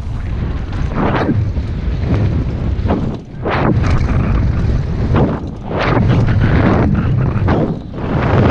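Wind buffeting the microphone of a helmet-mounted camera while a downhill mountain bike's tyres run fast over a dirt and gravel track, as a continuous rumble with a few short louder surges of tyre and gravel noise and two brief dips.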